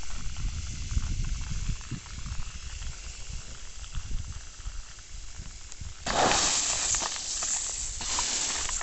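Water hissing out of a rain pipe, a perforated flat plastic irrigation hose spraying fine jets over the soil. The hiss is steady and grows clearly louder about six seconds in.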